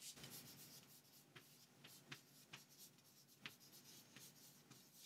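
Chalk writing on a chalkboard: faint scratches and light taps as a word is written out by hand.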